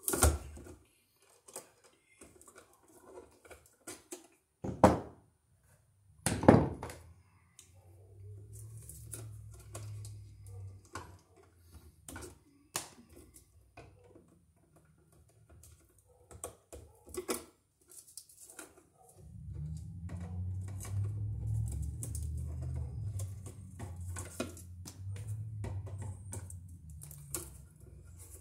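Pliers and wire strippers working electrical cable at a wall box: a long run of irregular clicks, snips and light knocks, with two louder snaps a few seconds in. A low rumble comes in twice, longest over the second half.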